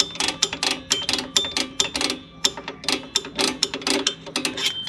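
Rear drum brake's star-wheel adjuster being turned to spread the brake shoes, its adjuster lever clicking over the teeth in a quick, uneven run of about five clicks a second.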